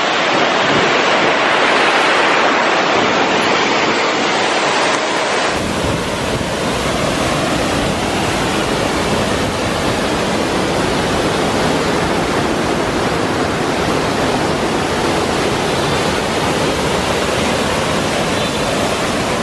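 A waterfall in heavy flow, with a loud, steady rush of falling water. About five seconds in, the rush becomes fuller and deeper.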